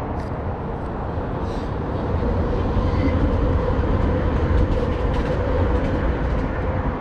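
Light-rail trolley train rolling across a bridge, its rumble swelling louder from about two seconds in, over a steady background of road traffic.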